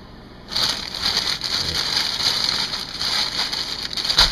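Overheated grease sizzling in a frying pan on an electric coil hot plate. It is a steady hiss that starts about half a second in, and the grease is hot enough to smoke. A sharp knock comes at the very end.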